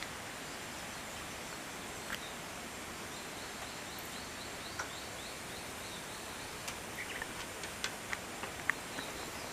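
Quiet outdoor ambience with a steady faint hiss. A small bird gives a quick run of short, high, rising chirps in the middle, and near the end a Shiba Inu's claws click and tick on wooden deck boards as it gets up and walks.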